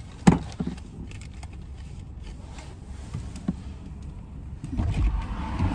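Low, steady rumble inside a car, with a single sharp knock about a third of a second in and a softer one later; the rumble grows louder near the end.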